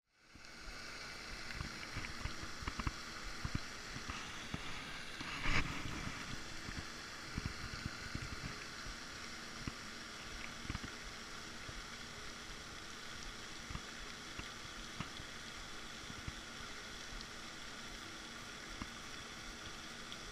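Steady hiss of a pond's spraying fountain, with small low bumps and rustles scattered through it and one louder rustle about five and a half seconds in.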